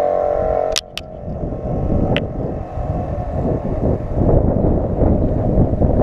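A pit bike engine running steadily, cut off abruptly under a second in; then wind rushing and buffeting over a helmet-mounted microphone while riding a bicycle, growing louder after about four seconds.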